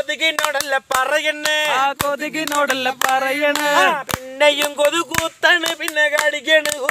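Men singing a Malayalam folk song, one voice leading with long held, wavering notes, while hands clap sharply and unevenly in time.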